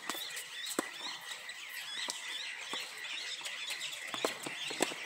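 Many small birds chirping steadily, with a few sharp knocks of a tennis ball being struck by a racket, the clearest about a second in and near the end.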